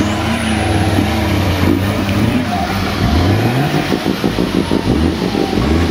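Nissan Patrol off-road truck's engine revving hard as it climbs a steep dirt bank. The revs rise and fall repeatedly and pulse rapidly near the end.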